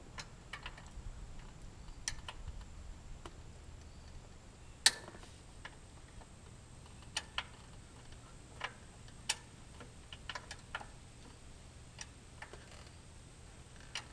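Irregular metal clicks and light knocks of tools and parts being handled during mower disassembly, with one sharper clank about five seconds in.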